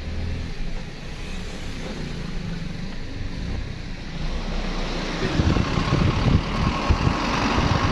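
Vehicle engine and road rumble heard from inside the cab on a rough dirt road. About five seconds in, wind starts buffeting the microphone and a rushing hiss swells.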